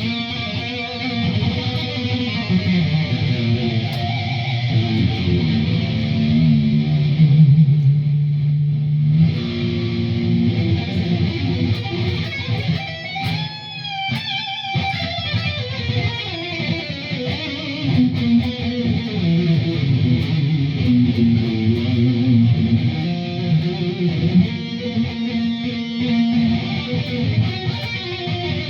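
Distorted lead electric guitar playing a metal lead line: an ESP LTD Arrow Black Metal with a single humbucker, through a Line 6 HD500X, a Rocktron Velocity 300 power amp and a Laney Ironheart cab. It has sustained notes, one long held note about eight seconds in, and swooping pitch bends about halfway through.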